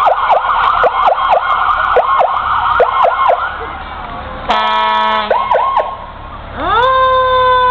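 Fire truck sirens: an electronic siren yelping in quick rising-and-falling sweeps, a horn blast about four and a half seconds in, then a siren winding up to a held wail near the end.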